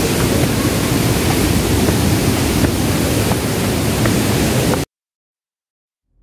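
Steady rushing roar of a nearby waterfall, an even noise spread across all pitches. It cuts off suddenly about five seconds in.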